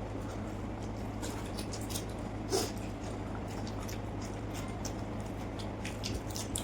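Close-up eating sounds: chewing, wet lip-smacking and small mouth clicks, with one louder wet mouth sound about two and a half seconds in. A steady low hum runs underneath.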